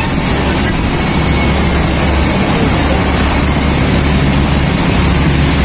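Steady noise of nearby motor traffic, with a low engine hum underneath.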